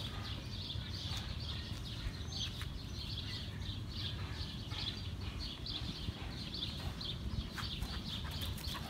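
Two dogs wrestling and scuffling on grass, with scattered sharp clicks, while birds chirp repeatedly in the background.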